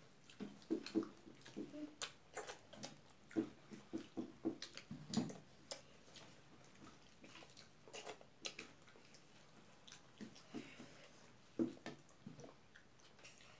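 People eating rice and singju with their fingers: faint, irregular wet chewing, lip smacks and mouth clicks, coming in scattered clusters.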